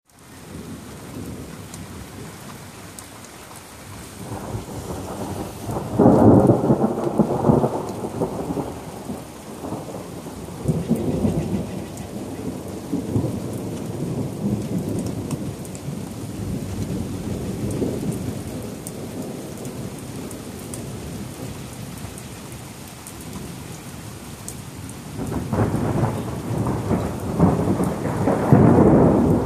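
Thunder rolling over steady rain. A peal builds from about four seconds in to a sudden loud crack at six seconds, then rumbles on in waves for many seconds. Another loud peal swells near the end.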